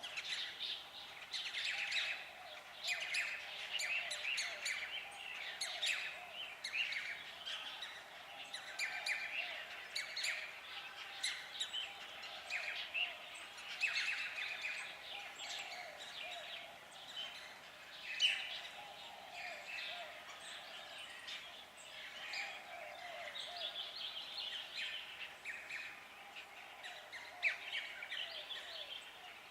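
A chorus of many woodland birds singing and calling at once: dense, overlapping chirps and tweets.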